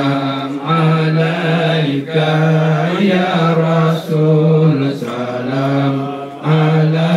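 Low male chanting in long, drawn-out held notes, phrase after phrase, with short breaks between phrases.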